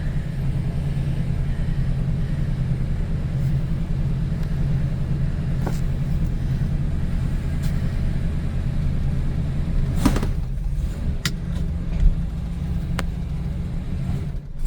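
Dodge Charger's Chrysler 318 V8 idling cold, freshly started after sitting a couple of months and not yet warmed up. A few sharp clicks and a thump come in the last few seconds.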